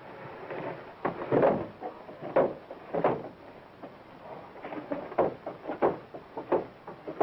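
Heavy, uneven footsteps and thuds on wooden stairs as a man carries a body down, on an old, muffled soundtrack with a steady hiss.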